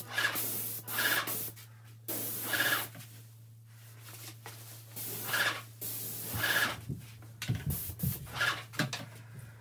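Graco X17 airless paint sprayer's gun spraying primer through a fine-finish low-pressure tip, hissing in about eight short bursts as the trigger is pulled for each pass, over a steady low hum.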